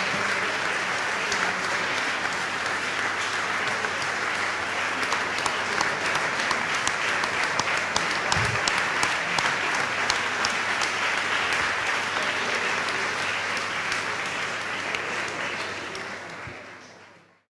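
Audience applauding steadily, many hands clapping, fading out near the end.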